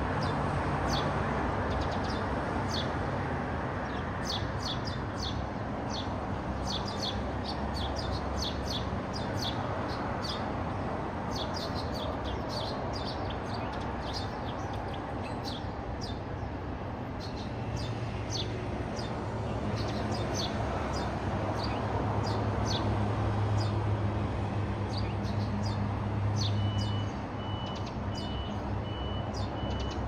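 Eurasian tree sparrows chirping: short, sharp chirps, several a second, over a steady background rumble.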